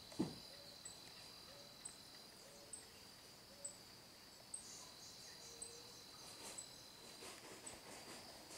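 Faint insects: a steady high buzz with short high chirps repeating about once a second. A single dull thump sounds just after the start.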